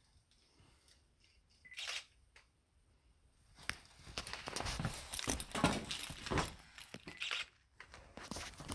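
Rustling and scraping handling noise of a phone held close to its microphone, starting about three and a half seconds in and lasting some four seconds, after a single short scrape about two seconds in.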